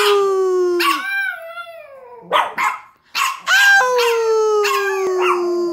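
A French bulldog howling: long drawn-out notes that slide slowly down in pitch, with a few short, sharp yelps in a gap about two seconds in before the howl resumes.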